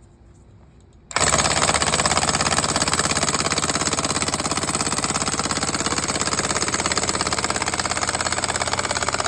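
Milwaukee impact wrench hammering continuously as it screws a Pylex steel pile into the ground, starting suddenly about a second in.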